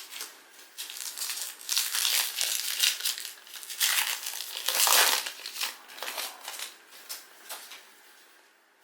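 Foil trading-card pack wrapper crinkling and rustling as it is torn open and handled, in irregular spells that are loudest about five seconds in and die away near the end.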